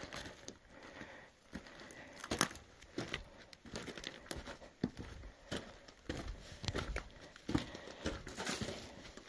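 A hiker's footsteps crunching on rocky desert ground, an uneven step about every half second.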